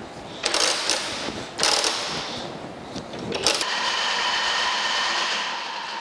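New Haven metal planer: two short bursts of metallic rasping as the tool head is cranked by hand, then a clunk about three and a half seconds in and the planer starts running, a steady mechanical whine as the table travels.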